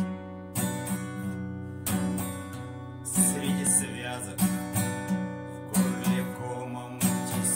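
Acoustic guitar strummed in a slow, even rhythm, with a strong chord stroke about every second and a quarter and lighter strums between: the instrumental intro before the vocal comes in.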